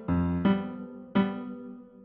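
Background music: piano-like keyboard notes struck one after another, each fading away, the last one ringing out near the end.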